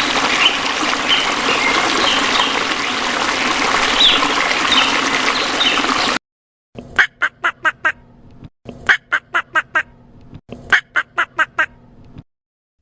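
Ducks quacking: three quick runs of five or six quacks each in the second half. Before that, about six seconds of steady noisy hiss with faint high chirps, which cuts off suddenly.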